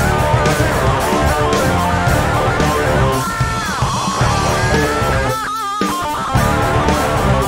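Instrumental rock from two overdubbed electric guitar tracks on a Gibson Raw Power over a cheap Ibanez bass guitar. About three seconds in, a lead note slides down in pitch, and near the end a held note wavers with vibrato.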